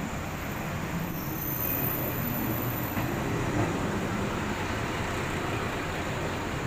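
Kanto Railway KiHa 310-series diesel railcar rolling into the platform and passing close by: a steady rumble of engine and wheels on rails that grows louder about two seconds in.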